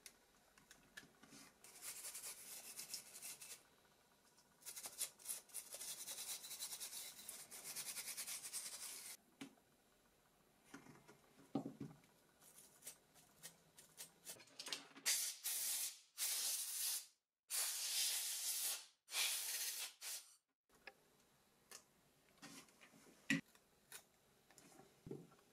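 Dry scraping and rubbing in stretches of a few seconds, with small clicks and taps between them: a toothpick scraping dirt off a Nokia Lumia 900's parts as it is cleaned.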